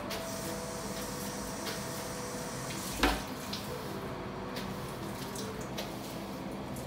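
Water running from a kitchen tap into the sink, steady, over soft background music. A single sharp knock about three seconds in.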